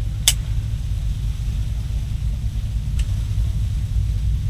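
Steady low rumble, with a sharp click just after the start and a fainter click about three seconds in.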